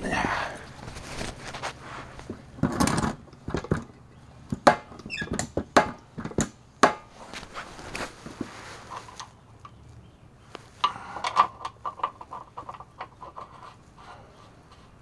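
Scuffing and sharp knocks and clicks of a man crawling under a semi truck's rear axle and handling tools at the differential fill plug after topping the axle up with gear oil. A quicker run of clicks comes about two-thirds of the way through.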